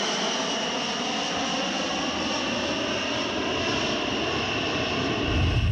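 Boeing B-52 Stratofortress's jet engines at takeoff power as the bomber climbs overhead: a steady roar with a high whine that slowly falls in pitch. Near the end it cuts abruptly to a deep rumble.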